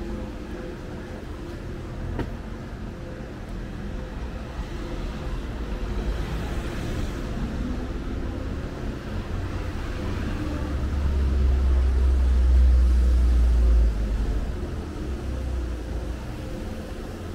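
Street traffic noise with motor vehicles running close by. A heavy low rumble builds from about ten seconds in and stops suddenly about fourteen seconds in.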